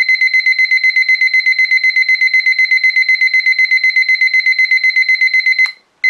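Hoinya digital kitchen timer's piezo beeper sounding a rapid run of high-pitched beeps, about nine a second, while its minute button is held down and the setting scrolls up toward 99 minutes. The run stops shortly before the end, followed by one short beep.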